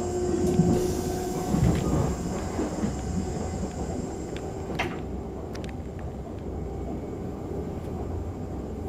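Running noise of a Czech Railways class 471 CityElefant double-decker electric unit, heard inside the passenger compartment: a steady low rumble of the wheels on the track. There are a few louder knocks in the first two seconds and a single sharp click about five seconds in.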